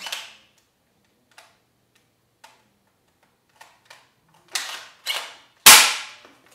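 Pump-action foam-dart blaster being worked and fired: a few light handling clicks, two rasping pump strokes, then one loud sharp shot near the end.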